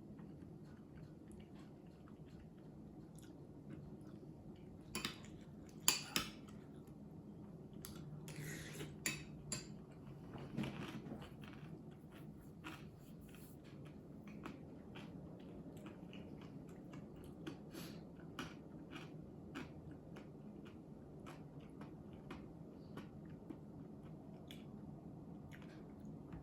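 Close-miked eating: quiet chewing, with scattered clicks and taps of tableware, a few of them louder, over a low steady room hum.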